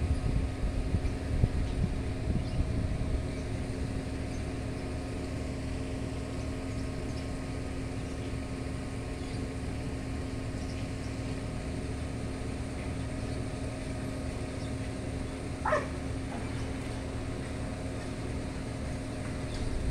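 Steady outdoor background rumble with a constant low hum, buffeting unevenly in the first few seconds, and one short rising-and-falling animal call about three-quarters of the way through.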